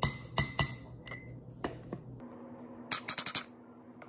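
Spoon clinking against glass mason jars while yogurt is spooned in: three ringing clinks in the first second, another a little later, then a quick run of rapid taps on a jar about three seconds in.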